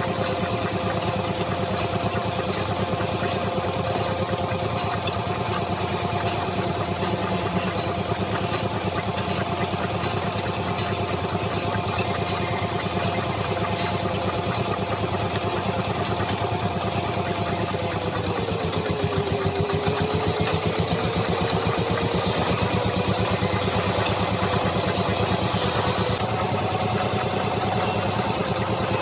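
Wood-turning lathe running steadily, its motor hum dipping briefly in pitch about two-thirds of the way through before recovering, over a continuous noisy whirr.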